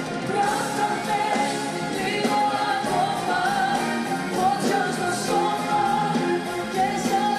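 Female pop singer singing live on stage over loud, steady band accompaniment, her melody wavering and sliding above the backing.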